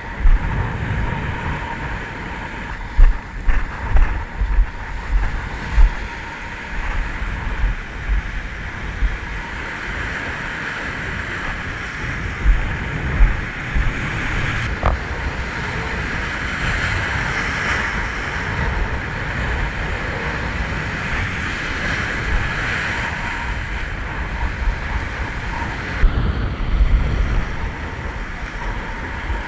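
Sea surf washing and breaking against a rocky shoreline, swelling and easing, with gusts of wind buffeting the microphone in the first few seconds and again near the end.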